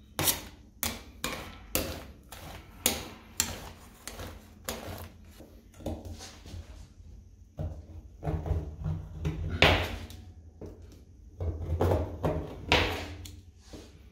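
Metal spatulas scraping and tapping on a steel ice-cream cold plate: a run of sharp strokes, about two a second, as the ice cream is spread thin, then from about eight seconds in longer, heavier scrapes as the frozen sheet is scored into strips.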